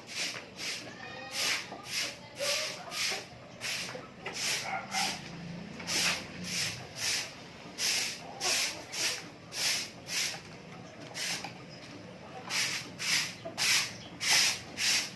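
Chickens clucking softly over a run of short scratchy rustles, about two a second.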